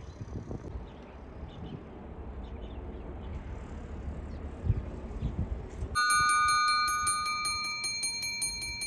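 Station platform electric bell starts ringing about six seconds in: a loud, rapid, continuous metallic ringing that signals an approaching train. Before it there is only a low rumble.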